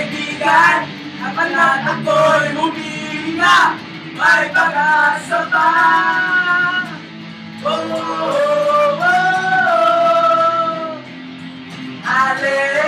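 A band playing: loud singing over strummed electric guitars, with long held sung notes about five seconds in and again from about eight seconds in.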